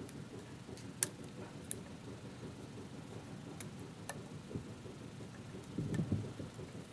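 Sharp, irregular clicks from a lock pick working serrated pins in a pin-tumbler lock, each click a pin stepping over a serration as it is pushed up or let back. A brief low rustle of handling comes near the end.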